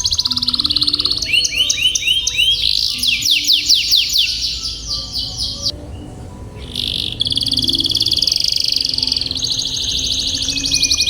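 Domestic canary singing: rapid rolling trills and runs of quick sweeping notes, with a brief lull about six seconds in. Faint background music plays underneath.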